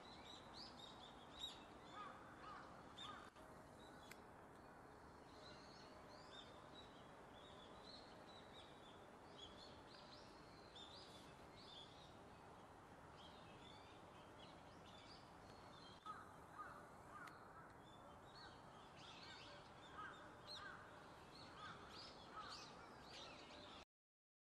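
Faint outdoor ambience with small birds chirping and calling over and over in the background. It cuts to silence near the end.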